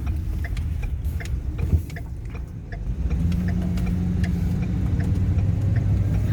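2014 Ford Econoline E-250 van's engine running, heard from inside the cab, with a regular light ticking. There is a single thump about a second and a half in, and from about three seconds in the engine pulls harder as the van gets under way.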